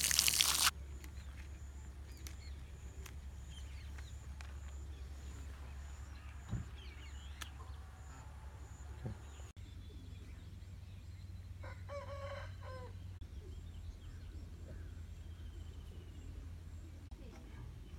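Water pouring and splashing onto a lamb carcass in a steel tray, cut off abruptly under a second in. Then quiet outdoor ambience with faint bird chirps and a faint rooster crowing once, about twelve seconds in.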